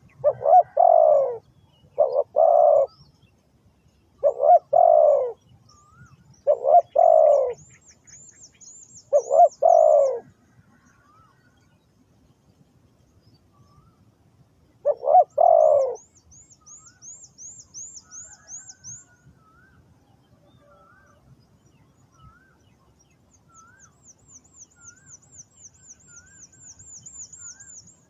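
Spotted dove cooing: six two-part coos, each about a second long, five coming close together over the first ten seconds and one more about fifteen seconds in. Thin, high, rapid trills from a small bird sound between them, with soft short whistles in the second half.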